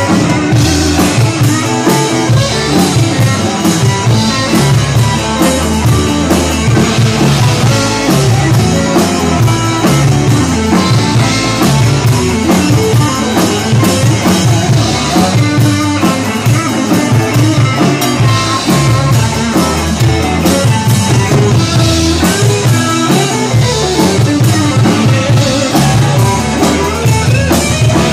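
Live rock band playing loud and without a break: two electric guitars over a drum kit, with a steady beat and regular cymbal crashes.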